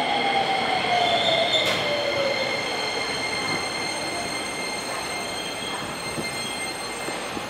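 Keisei 3000-series electric train pulling out, its Toyo IGBT-VVVF inverter whining in tones that slide down in pitch over the first couple of seconds, over steady high-pitched tones. The sound fades slowly as the train draws away.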